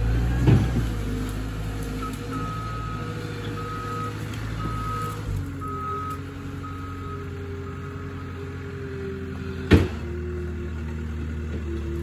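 Loader's engine running steadily while its backup alarm beeps about once a second for several seconds as it reverses. A single sharp knock near the end.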